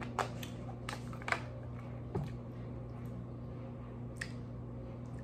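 A handful of sharp clicks and light taps from handling a foil-lined takeout tray and a plastic water bottle at a table, spaced irregularly over a steady low electrical hum.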